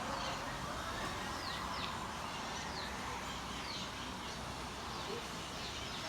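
Faint, scattered chirps of small birds over steady outdoor background noise.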